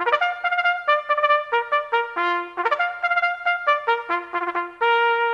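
Solo brass music, trumpet-like: a brisk run of short notes that ends on a long held note near the end.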